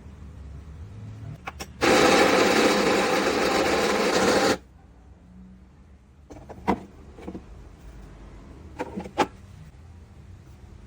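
Electric burr coffee grinder motor running for about three seconds and then stopping abruptly, followed by a few sharp plastic clicks and taps from the machine being handled.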